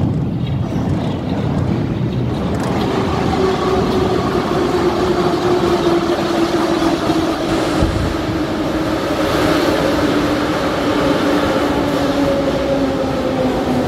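A Moscow metro train pulling into the station: a loud, steady rumble of wheels on rail, with a whine from the train's drive that falls slowly in pitch from about two seconds in as the train slows along the platform.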